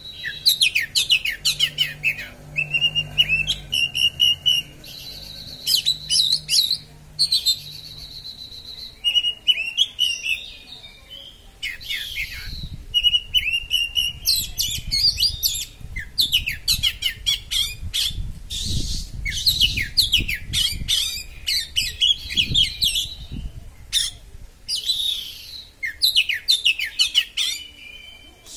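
Oriental magpie-robin (kacer) singing a sharp, rapid 'konslet' song: quick runs of shrill chattering notes and trills with brief pauses, now and then a held high whistle. A faint low rumble sits underneath through the middle.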